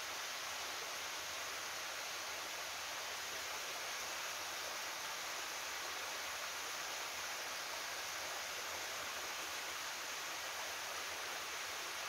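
Steady rushing of a slender waterfall pouring down a steep granite rock face, an even hiss of falling water with little low rumble.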